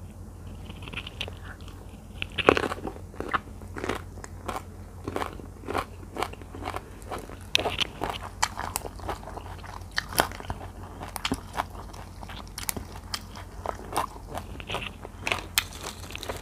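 Close-miked crunching and chewing as raw Thai eggplant topped with spicy tilapia larb is bitten into and eaten, an irregular run of crisp crunches throughout.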